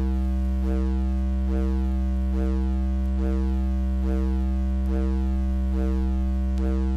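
Electronic noise music: a steady low synthesizer drone with a chirping pulse repeating slightly faster than once a second.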